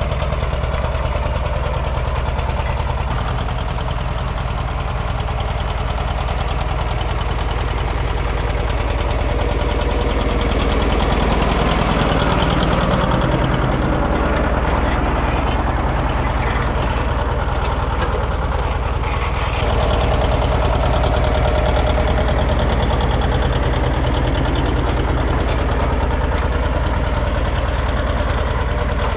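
John Deere 730 Diesel's two-cylinder diesel engine running steadily under load, pulling a culti-mulcher through plowed ground.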